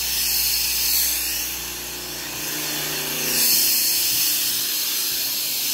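Steady rushing hiss of a carpet-cleaning extraction machine's vacuum pulling air through the hose, swelling and easing slightly. A low hum underneath drops out about four seconds in.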